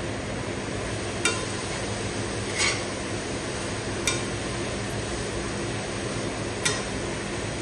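Metal spatula stirring and tossing flat rice noodles, bean sprouts and greens in a stainless steel pan, clinking sharply against the pan four times over a steady hiss from the frying.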